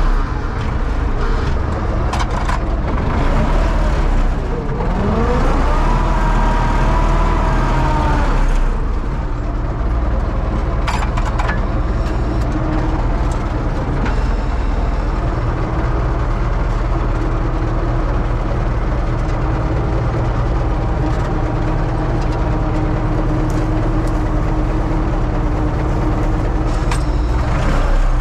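Universal U650 tractor's diesel engine running steadily with a deep drone, with a whine that rises in pitch about five seconds in and holds for a couple of seconds.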